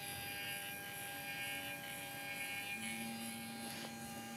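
Stepper motor driving a ball-screw linear stage open loop, the carriage travelling along the screw: a steady electrical whine made of several fixed tones, with a lower tone joining about three seconds in.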